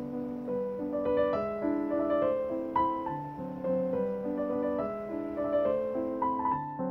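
Background piano music: a waltz, single notes and chords struck one after another.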